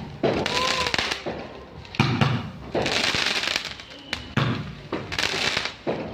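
Fireworks going off: a sharp bang at the start, another about two seconds in and another about four and a half seconds in, each followed by about a second of crackling.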